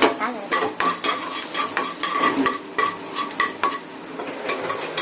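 Garlic sizzling in hot oil in a kadai as a spatula stirs it, scraping and clinking against the pan in quick strokes that ring briefly; the strokes thin out near the end.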